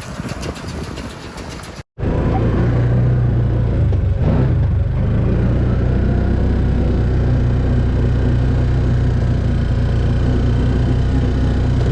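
Farm tractor engine running at a steady speed with a deep, even drone, starting after a sudden cut about two seconds in.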